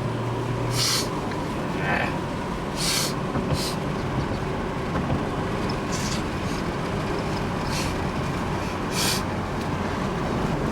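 A car driving, with a steady engine and road rumble heard from inside the cabin. Short hissing swells come several times.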